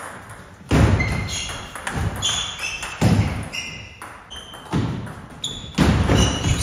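Table tennis rally: the ball knocking off paddles and the table with a short ring, about once a second, with short high shoe squeaks on the sports floor between hits.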